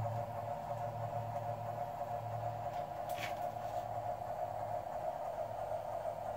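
Steady electrical hum with a higher steady drone over it, from a powered model train layout, and one brief rising swish about three seconds in.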